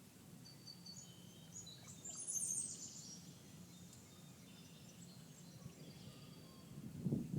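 Songbirds singing and calling, with short high chirps and trills that peak in a brief burst about two seconds in, over a steady low background rumble. A louder low-pitched call or sound comes just before the end.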